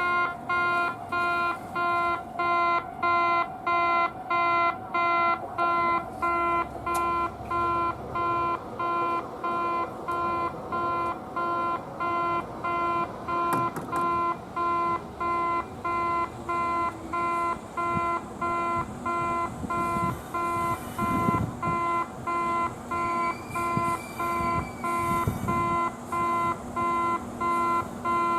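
Japanese railway level-crossing alarm ringing in a slow, even rhythm. A train's low rumble joins underneath in the second half, with a brief rising squeal near the end.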